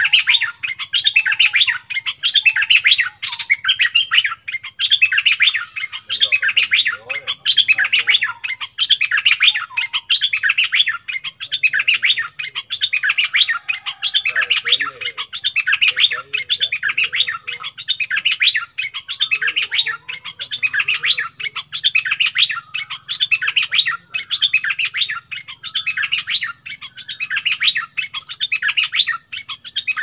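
Caged bulbul, the bird Thai keepers call nok dok taeng, singing hard with quick chirping phrases delivered back to back, each a burst of rapid notes with only brief pauses between.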